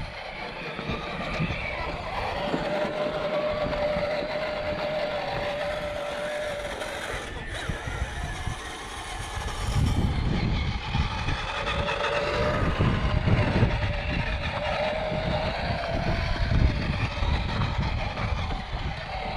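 Electric motor and gears of a 1/10-scale RC trail truck whining steadily as it crawls, twice for about five seconds each, over a low rumble.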